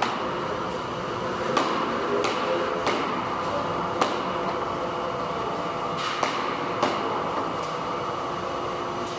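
Machinery in a receipt-paper roll factory running with a steady hum, with sharp clacks and knocks at irregular times, about one to two seconds apart, as the machine puts out finished rolls.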